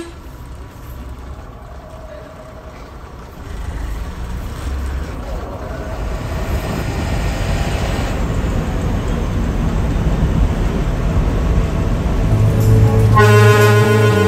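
Engine and road rumble inside a moving bus, growing louder as it picks up speed, with a horn sounding now and then. Background music comes in near the end.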